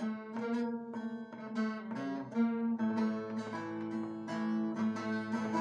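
Bağlama (long-necked Turkish saz) played solo: a plucked melody over a ringing drone string. About three seconds in it turns to a denser, strummed rhythm.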